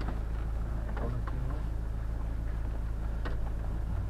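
Fire engine's diesel engine running, heard as a steady low rumble inside the cab, with a few faint clicks.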